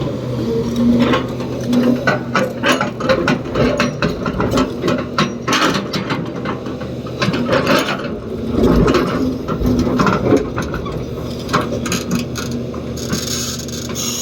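Excavator's diesel engine running steadily under a fast, irregular series of metallic clanks and rattles, which thin out near the end.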